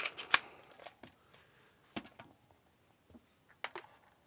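Handling clicks and knocks of a B&T APC9K with a long magazine fitted as it is turned over: one sharp click about a third of a second in, then a few lighter knocks.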